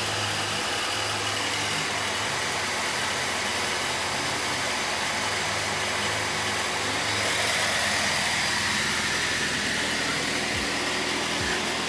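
Diesel truck engine idling steadily, heard from inside a truck cab, swelling slightly for a couple of seconds past the middle.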